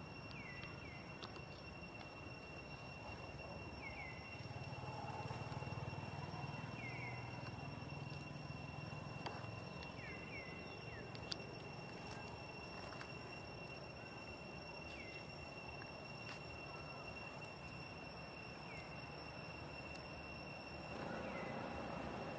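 Outdoor ambience with a steady, high insect drone, short falling chirps every few seconds, and a low background rumble.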